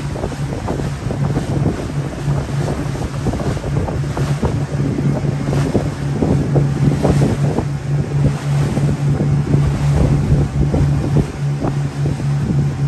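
Engine of a small wooden fishing boat running steadily at cruising speed, with wind buffeting the microphone and water rushing past the hull.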